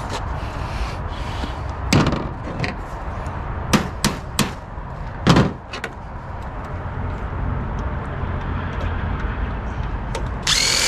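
Several sharp knocks and bangs from the metal parts of a large printer being pried and struck while it is taken apart, over a steady low rumble.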